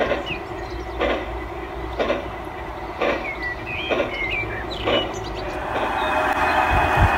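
G-scale model steam locomotive running slowly on garden track, with a regular beat about once a second; birds chirp in the middle. Near the end a steadier, louder engine drone from a model diesel takes over.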